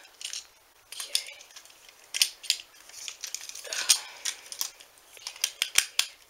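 Small irregular clicks and scrapes of hard plastic and a metal screw as the head of a TrackMaster Sir Handel toy engine is screwed back on, with a longer scraping rustle about four seconds in.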